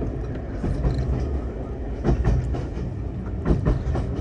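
Steady low rumble of a steam-hauled railway carriage running along the track, with two pairs of sharp knocks about two and three and a half seconds in.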